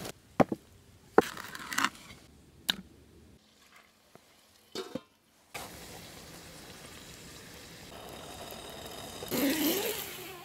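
A few sharp knocks and snaps, then a steady sizzling hiss of food cooking over a campfire, which grows into a louder rustle near the end.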